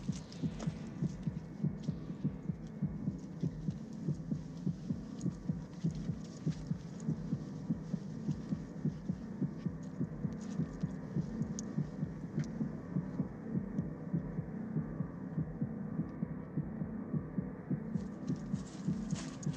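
Film sound effect of an amplified human heartbeat, beating steadily at about two to three thumps a second. It stands for a terrified man's pounding pulse.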